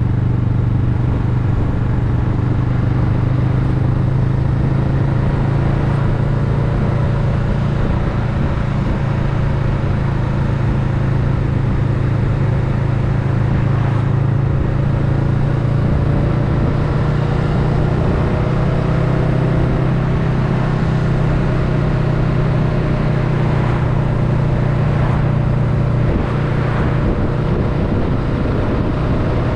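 Honda Rebel 500's parallel-twin engine running steadily under way, its pitch climbing slowly as the bike gathers speed, with road and wind noise underneath.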